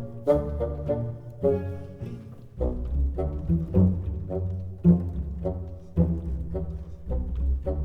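Background music played on strings, with short plucked and bowed notes over a low bass line in a steady rhythm.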